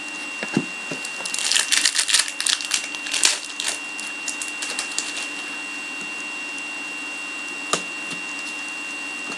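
Trading cards and their pack wrapping being handled: a run of quick crackling, rustling clicks for a few seconds, then one more click a few seconds later.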